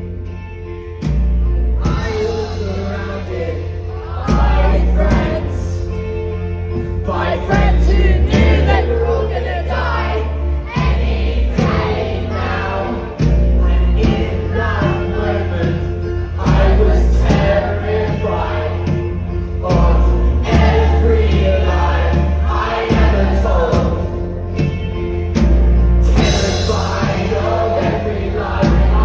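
A rock band playing live, heard through a phone's microphone in the crowd: electric guitar, drums and a singer over a very heavy, boomy bass that changes note every second or two.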